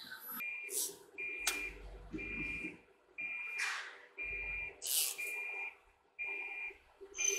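Electronic warning beeper on a CNC router sounding steadily, about one half-second beep each second, all at the same pitch. Between the beeps come a few short hisses and low thuds as a panel is set on the vacuum pods.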